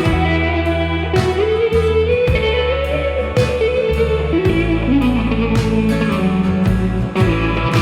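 Country-rock band playing an instrumental break with electric guitars, upright bass and drums keeping a steady beat. A sliding lead line climbs in pitch and then glides slowly down over it.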